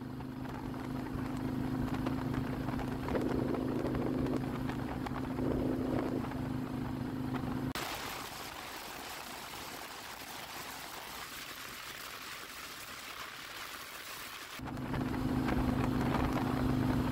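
Harley-Davidson motorcycle engine running with a steady low hum at cruising speed, with wind rush. About eight seconds in it cuts to mostly wind noise with the engine barely heard for about seven seconds, then the steady engine hum returns.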